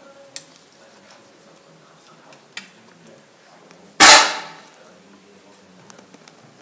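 Match air pistol firing a single shot about four seconds in: one sharp crack with a short echo from the range hall. A couple of faint clicks come before it.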